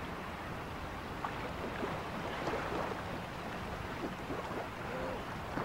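Small sea waves washing and water splashing in the shallows, over a steady rush of wind on the microphone.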